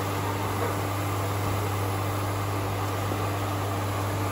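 Steady electrical hum and cooling-fan whir of an induction cooktop heating a pan of frying oil, with a faint even hiss.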